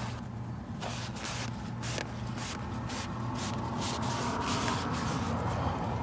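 Crumpled paper shop towels rubbing and rustling as oily threads on an oil filter housing cap are wiped clean, in short scratchy strokes that grow denser about halfway through, over a steady low hum.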